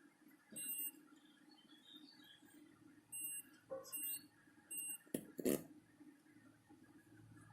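Digital multimeter beeping in continuity mode as its probes touch connected points on a laptop motherboard: four short high beeps, three of them close together, then a louder knock.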